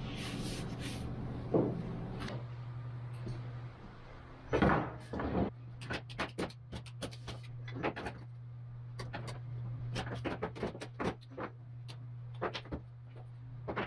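Irregular sharp light knocks and clicks, a single heavier knock about four and a half seconds in, then a quick scattered run of them from about six seconds in, over a steady low hum.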